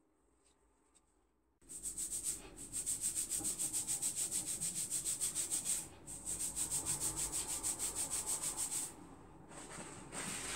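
Fingers rubbing and fluffing out oiled natural coily hair: a fast, even scratchy rubbing at about six strokes a second, starting after a quiet second and a half and pausing briefly about halfway through and again near the end.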